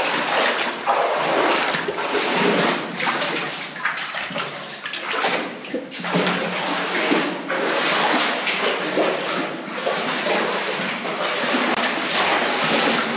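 Footsteps wading through water, with irregular sloshing and splashing one after another.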